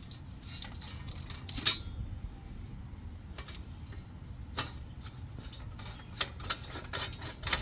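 Scattered light metallic clicks and clinks of a hand tool and a hub mounting bolt being backed out and handled, coming at irregular intervals over a steady low background hum.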